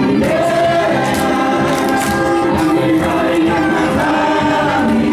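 Song for a Niuean dance: many voices singing together, with held notes sounding at once.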